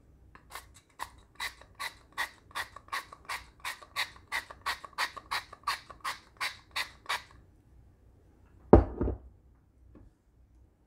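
A glass-and-stainless pump oil sprayer misting oil onto popcorn: about twenty quick sprays, roughly two and a half a second. Then one loud thump, the bottle being set down on the counter.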